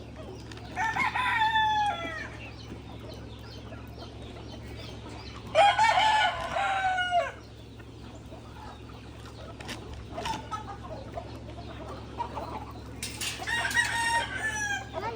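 Rooster crowing, two long crows about a second and six seconds in and a third near the end, with quieter chicken clucking between them.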